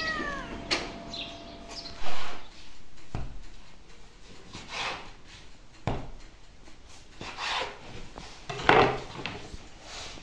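Knife knocking on a wooden board as dough is cut, and hands rubbing and pressing dough pieces on the floured board, with a loud knock about two seconds in. A cat's meow tails off at the very start.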